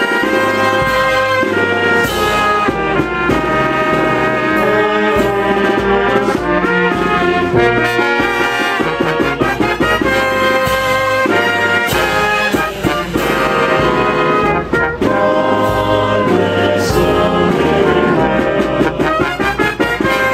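Brass band playing a tune, with trumpets and trombones together over a low bass line.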